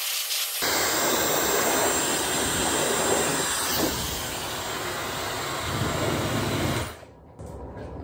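Handheld hair dryer blowing a steady, even noise, which cuts off abruptly about seven seconds in.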